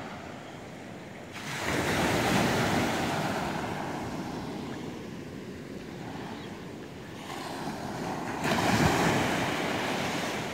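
Small waves breaking and washing up a sandy beach: a steady rushing wash with two louder surges, one about a second and a half in and one near the end, each slowly fading.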